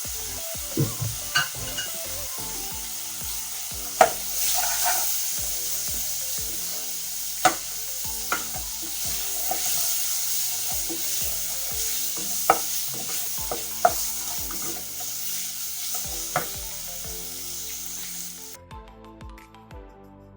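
Beef topping with onions sizzling in oil in a pan as it is stirred, the spatula knocking against the pan every second or few. The sizzling cuts off near the end.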